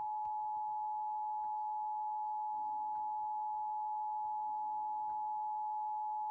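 Emergency Alert System attention signal: two steady tones sounded together (853 and 960 Hz), held unbroken as the alert for a Child Abduction Emergency (Amber Alert) message.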